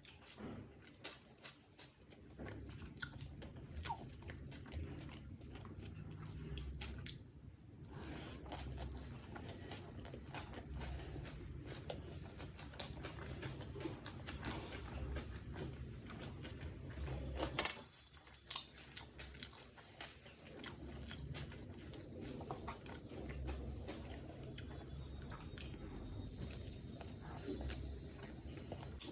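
Close-miked chewing and biting of chicken biryani, wet mouth sounds with crunches from raw onion, continuing throughout with a brief pause about two-thirds of the way through.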